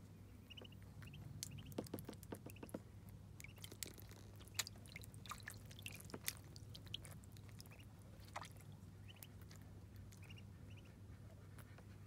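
Muscovy ducklings peeping faintly in short groups while they paddle and dabble in shallow water, with scattered small splashes and clicks that cluster in the first part and die down after about eight seconds. A steady low hum lies underneath.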